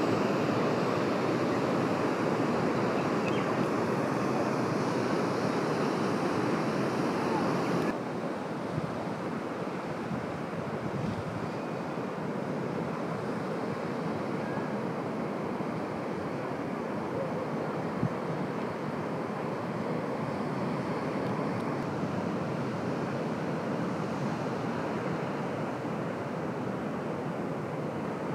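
Sea surf washing in steadily, with wind. The sound drops suddenly in level and turns duller about eight seconds in, then carries on steadily.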